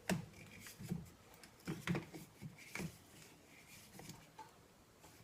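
Quiet, irregular clicks and taps of a flathead screwdriver turning the stock's mounting bolt into a Mossberg 500 shotgun's receiver, with a few sharper knocks in the first three seconds.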